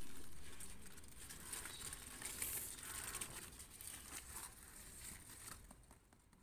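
Dry soil crumbling and scraping as a clump of turmeric rhizomes is dug out and pulled up by hand: a faint rustle with scattered small crackles, busiest in the middle and dying down near the end.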